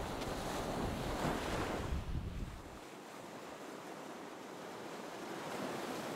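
Wind buffeting the microphone, with a heavy rumble that drops away about three seconds in, leaving a quieter steady wash of wind and small waves on the sandy shore.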